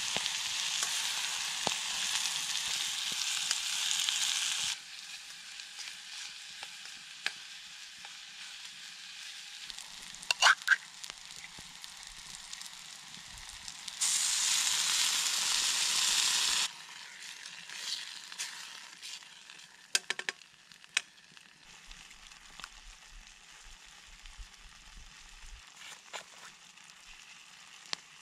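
Food sizzling in a kettle hung over a campfire. The sizzling is loud for the first few seconds and again about halfway through, each loud stretch stopping abruptly, with quieter sizzling between and a few sharp clicks and knocks.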